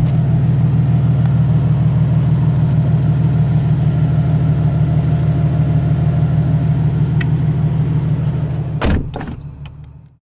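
Nissan 350Z's engine idling, a steady low hum. A single thump comes near the end, and then the sound fades out.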